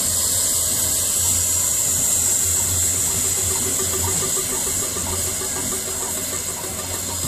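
LNER A4 Pacific steam locomotive 4464 Bittern pulling out of the station, its escaping steam making a loud, steady high hiss over a low rumble. The sound eases a little near the end as the engine moves away.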